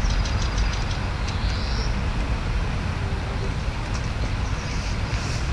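Steady outdoor background noise: a low, unsteady rumble under an even hiss, with a faint high chirp about a second and a half in.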